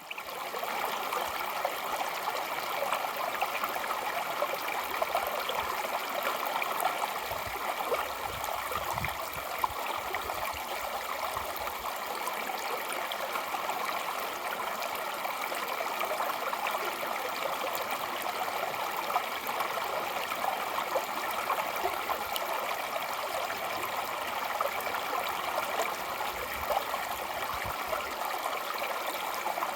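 Mountain stream running steadily over rocks, a constant rushing and splashing of water.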